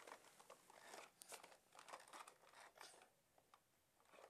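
Near silence with faint rustles and light clicks as plastic toy cars are handled and stacked, fading to almost nothing near the end.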